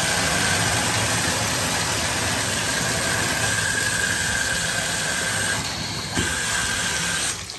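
Water running from a newly installed two-handle mobile home tub/shower valve and spout into the tub, a steady rush with a faint whistle in it. About six seconds in a handle or knob on the valve clicks, and shortly before the end the flow is shut off.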